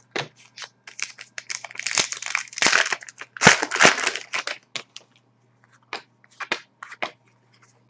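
Foil wrapper of a Panini Contenders trading card pack crinkling and tearing open, a dense rustle from about one and a half to four and a half seconds in, then a few light clicks as the cards are handled.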